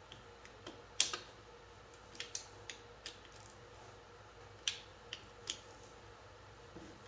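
Scattered sharp clicks and light metal clinks from hand tools on the T40 case bolts of a BorgWarner 44-46 transfer case as they are gone over and made tight, with a few separate ticks spread over several seconds.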